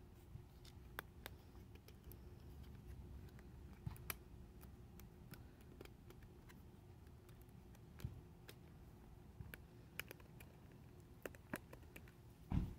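Faint crinkling and scattered light clicks of cellophane shrink-wrap being slit with a small plastic cutter and peeled off a small cardboard photocard box. A louder knock comes near the end as the box is handled.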